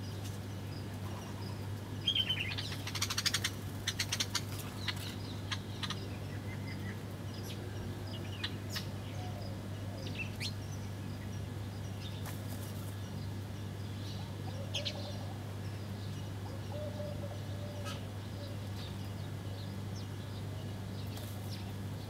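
House sparrows chirping around a ground feeding dish. About two seconds in there is a flurry of wing flutter and chirps as birds land, then scattered single chirps, all over a steady low hum.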